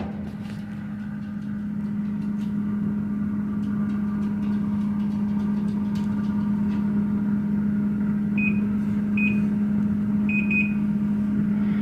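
Microwave oven running with a steady hum that grows a little louder. Several short, high beeps sound near the end.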